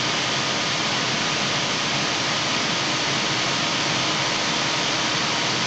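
Steady, even rushing of air from a computer's cooling fan running hard, with a faint hum, while Blender is busy generating previews.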